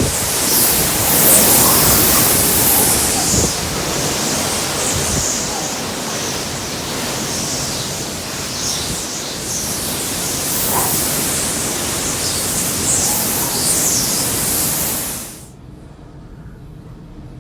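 Hurricane wind and rain: a loud, steady rush of noise that swells in gusts, then cuts off suddenly near the end.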